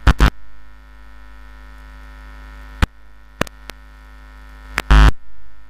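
Steady electrical mains hum with a buzzy stack of overtones on the broadcast audio, broken by several sharp clicks and a heavier thump about five seconds in.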